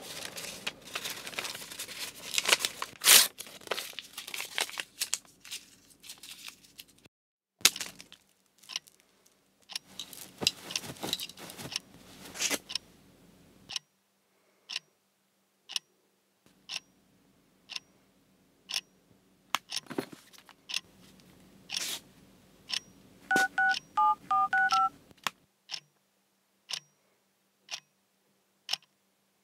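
Paper rustling and tearing, then a clock ticking about once a second from about halfway through. Late on, a short run of phone keypad beeps (DTMF dialing tones) sounds over the ticking.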